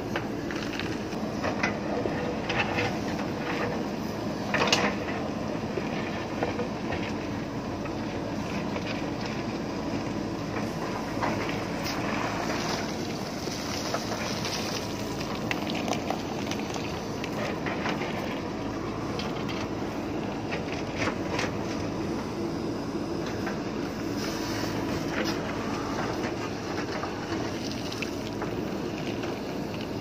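JCB backhoe loader's diesel engine running steadily under load as the backhoe bucket digs and scrapes through loose broken stone, with repeated clatter and knocks of rock against steel. The loudest knock comes a little before five seconds in.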